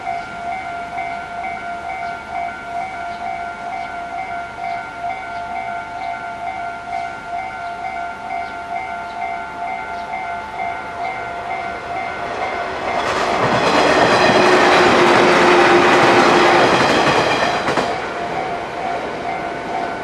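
Japanese level-crossing alarm ringing with a steady repeating electronic clang. About two-thirds of the way in a JR Sanyo Main Line train passes through the crossing for about five seconds, loud enough to swamp the alarm, then fades.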